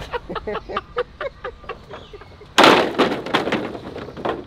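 Long dry bamboo poles clattering as they are thrown down onto a pile: a sudden loud burst of hollow knocks and rattles starting about two and a half seconds in and lasting nearly two seconds.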